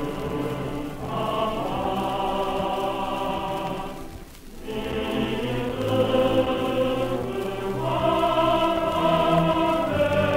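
A choir singing a slow song with long held notes, breaking off briefly about four and a half seconds in before carrying on.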